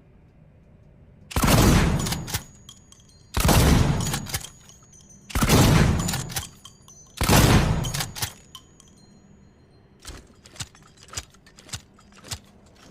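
Ithaca Model 37 12-gauge pump-action shotgun fired four times, about two seconds apart, with the clack of the pump being worked after each shot. Near the end come a handful of lighter metallic clicks from the action.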